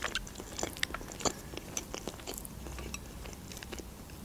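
Close-miked chewing of food: a person eating with short, wet mouth clicks, busiest in the first two seconds and thinning out towards the end.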